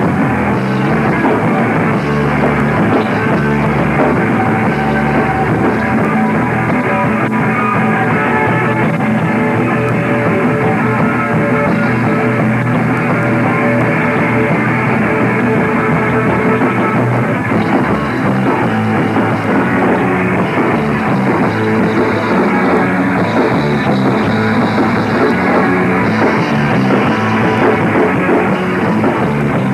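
A rock band playing live: electric guitar and drum kit with vocals, loud and continuous.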